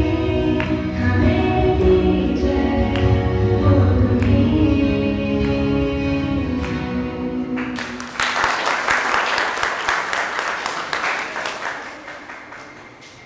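A song with singing and instrumental backing, which ends about eight seconds in and gives way to applause that dies away near the end.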